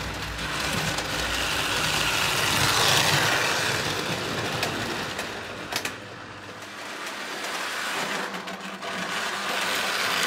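Lionel O gauge toy steam train running on three-rail tinplate track: a steady mechanical whir and rattle of its motor and wheels on the rails. It gets louder about three seconds in, drops off around the middle with a single click, and builds again near the end.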